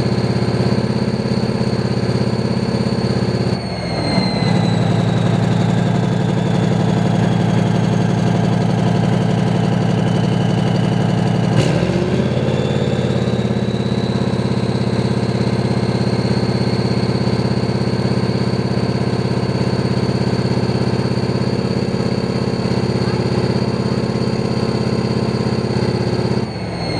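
Type 90 tank's V10 turbodiesel engine running steadily, with a high whine over it. The engine note changes briefly twice, a few seconds in and near the middle. The whine drops in pitch after the first change and climbs back up after the second.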